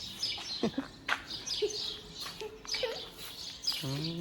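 Small birds chirping in quick, repeated high notes around the farm buildings, with a short low call just before the end.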